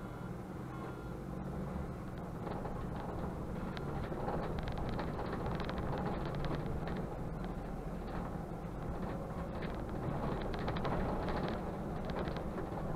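Mercedes-Benz Conecto city bus driving, heard from the driver's cab: a steady engine and road rumble that grows slightly louder, with light clicking rattles coming in from about four seconds in.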